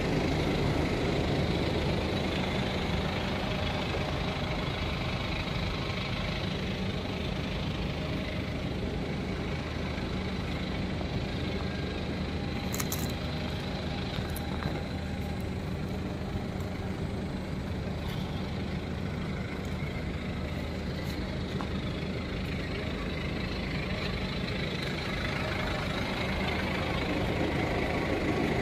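An engine idling steadily, an even low hum under a constant hiss, with a faint click about halfway through.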